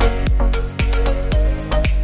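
Background music with a steady beat, about two strong beats a second over held tones.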